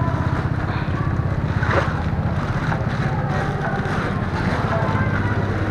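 A small engine running steadily, its low pulsing even throughout, with wind buffeting the microphone.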